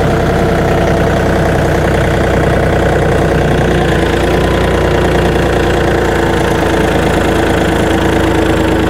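40-horsepower John Deere compact tractor's engine running steadily as the tractor eases forward.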